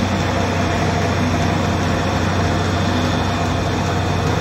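Small Maharaja home flour mill (atta chakki) running steadily while grinding grain into flour: a low, even hum under a dense, unbroken grinding noise.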